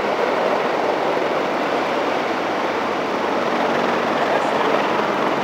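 Large military helicopter flying low overhead: a loud, steady rotor and engine noise that holds level as it passes.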